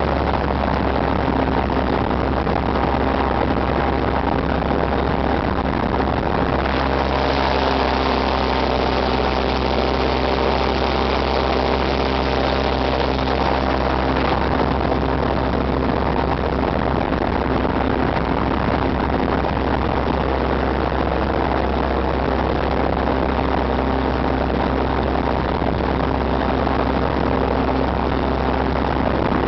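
Airboat engine and air propeller running steadily, heard from on board. About a quarter of the way in the engine note changes and the sound brightens for several seconds, then settles back.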